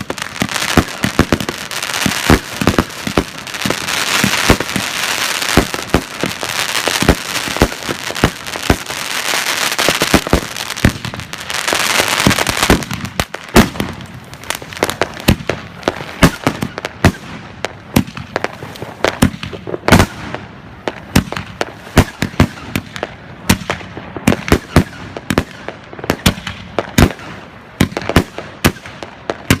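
Misfiring firework battery going off: rapid, irregular bangs and crackles, with dense hissing stretches around four and twelve seconds in, thinning to separate sharp bangs after about thirteen seconds.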